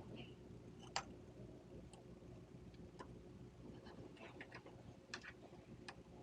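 Faint, scattered small clicks and ticks of metal parts and a small tool while a red-dot optic is screwed onto a Glock's dovetail optic plate; the sharpest click comes about a second in, with a quick cluster of clicks near the end.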